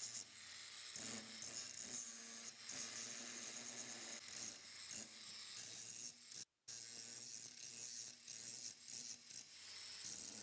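Metalworking sounds: steady rasping and scraping with a low hum under it, broken by a short cut to silence about six and a half seconds in.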